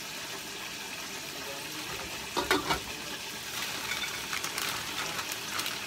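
Plastic bag of frozen stir-fry vegetables crinkling as the frozen pieces are shaken out and rattle onto a plastic lid, with a louder rattle about two and a half seconds in, over a steady hiss.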